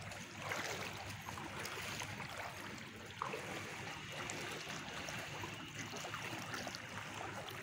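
Floodwater sloshing and lapping steadily as someone moves through it, with small splashes and trickles.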